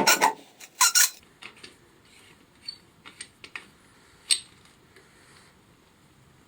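Hand-worked rasping or sanding strokes on wood stop early, with two more strokes about a second in. A few light clicks and taps follow, the sharpest a little past four seconds in.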